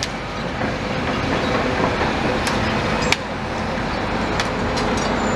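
Tracked demolition excavator driving off, its engine running steadily, with a few sharp clanks from its steel tracks.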